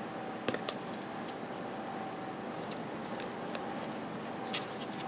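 Trading cards being handled and flipped through: light clicks and slides of card stock, the sharpest about half a second in and again near the end, over a steady background hiss.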